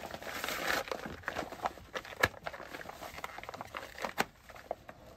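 Rustling and crinkling of a foil-covered protective hood as it is pulled over the head and settled, with scattered clicks and knocks from handling the mask; a sharp click about two seconds in is the loudest, and the handling noise grows fainter toward the end.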